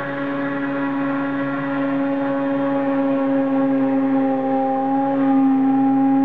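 CNC machine running, its motors giving a steady whine of several tones together. A few of the tones shift in pitch about four to five seconds in, and the sound grows slightly louder.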